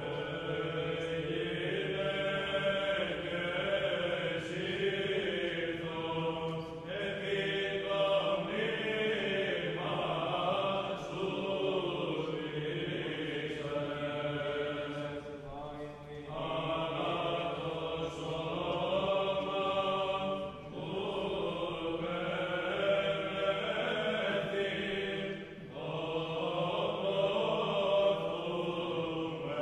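Background music: a slow choral chant, several voices holding long notes together in phrases that break off every few seconds.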